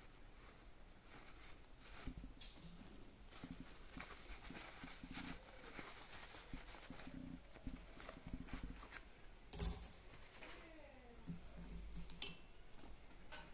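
Small metal bearing-carriage parts being handled and cleaned by hand: scattered light clicks, taps and scraping, with one sharp, louder click about two-thirds of the way through.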